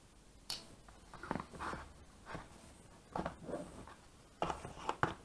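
Scattered clicks, taps and rustles of folding knives being handled and set down, with a sharp click about half a second in.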